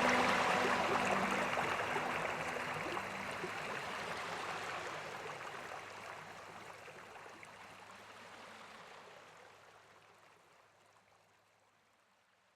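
Water of a stream flowing over rocks, a steady rushing that fades gradually away to near silence.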